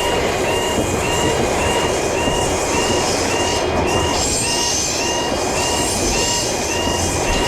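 Japanese railroad crossing alarm bell ringing steadily in a two-tone ding, just under two strokes a second. A train runs through the crossing under it with a dense rushing rumble.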